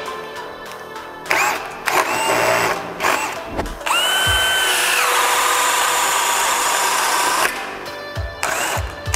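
Cordless hammer drill (DeWalt DCD999) boring a 32 mm hole-boring bit into hardwood in second gear. It starts with a few short bursts of rising motor whine, then a longer run from about four seconds. About five seconds in the whine drops to a lower pitch as the motor slows under load, and it stops near seven and a half seconds.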